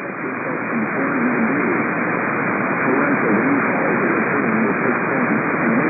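Steady radio static hiss from a weakly received weather radio broadcast, with a voice faintly audible beneath it: the signal has faded.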